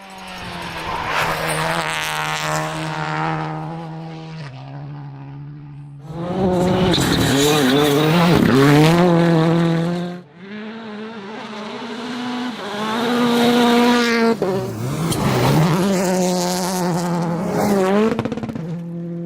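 Rally car engines at full throttle, revving hard and shifting gears, with quick lifts and dips in engine pitch. Several short passes follow one another, each cut off abruptly.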